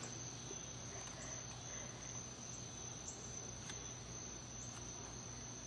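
Crickets trilling faintly and steadily, a single unbroken high-pitched tone, over a low steady hum.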